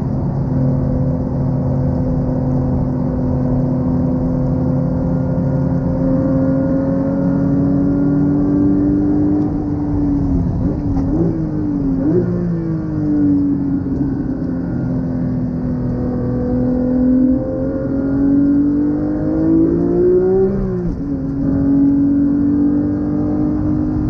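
Porsche 911 GT3's naturally aspirated flat-six engine driven hard on track, heard from inside the cabin. It holds steady revs for long stretches, gives two quick sharp rev spikes about eleven and twelve seconds in, climbs until a sudden drop in revs about twenty seconds in, then climbs again near the end.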